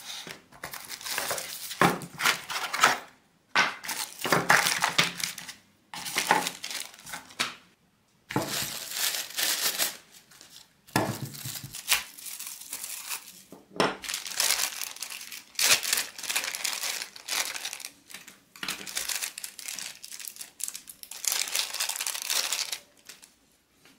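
Clear plastic packaging bags crinkling and rustling as boxed accessories are lifted out and handled, in irregular bursts with short pauses, along with the rustle of a cardboard box lid.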